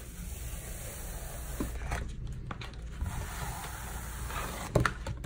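Glitter iron-on vinyl being peeled off a sticky Cricut cutting mat and handled: a soft crackling rustle with a few light clicks, and a sharp knock near the end.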